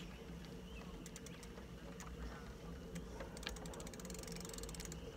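Bicycle rolling on asphalt with a low steady hum, and a rapid ratchet-like clicking of the freewheel for about a second past the middle, as when coasting.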